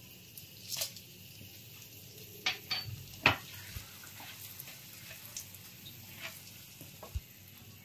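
Whole dried red chillies sizzling in hot oil and butter for a tadka, with a faint steady hiss as a spoon stirs them in the pan. A few sharp clicks and taps, the loudest about three seconds in.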